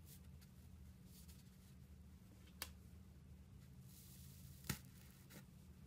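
Finger pressing into thick slime in a tub: faint crackling with two sharp pops, one midway and one near the end, and a smaller one after, over a low steady hum.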